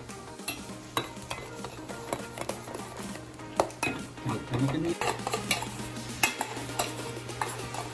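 Metal spoon stirring saffron milk in a stainless steel saucepan, with repeated clinks and scrapes against the pan, over a steady low hum.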